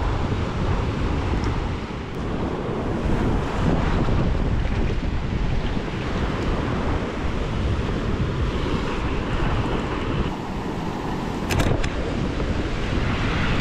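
Wind buffeting the microphone over the wash of rough surf on the rocks, a dense unsteady rumble; a few brief clicks near the end.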